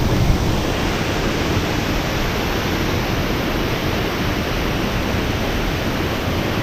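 The Upper Diyaluma waterfall, water rushing steadily over and down the rock face close by, an even unbroken noise.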